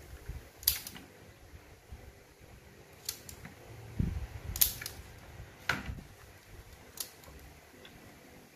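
Sharp plastic clicks from the cassette mechanism of a Sony CFS-1133S radio-cassette player being worked by hand, with its piano-key buttons and the tape in the deck. A handful of single clicks fall a second or two apart, with a dull knock about four seconds in.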